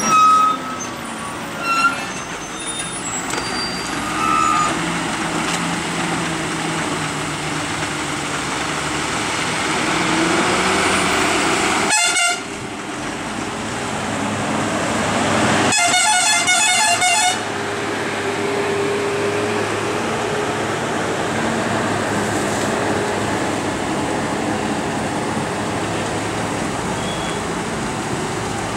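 Loaded trucks' diesel engines running under load through a hairpin bend. There are several short horn toots in the first few seconds, then a long pulsing, multi-tone horn blast a little past the middle.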